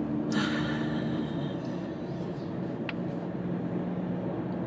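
Steady road and engine noise inside a moving car's cabin: a low hum with an even rush under it. About half a second in there is a brief louder rush of noise, and near the three-second mark a short faint chirp.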